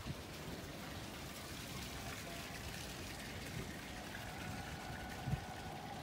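Faint, steady hiss of harbour ambience, with water and light wind, and a single soft thump about five seconds in.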